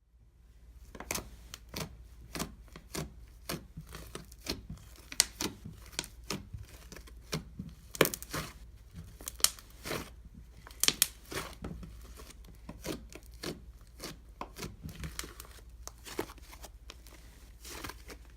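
Fluffy slime being squeezed, poked and stretched by hand, giving irregular sharp pops and crackles, one to three a second.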